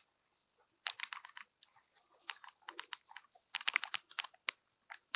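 Footsteps of a person walking through pasture grass: faint, uneven runs of short crisp clicks, one run per step or two.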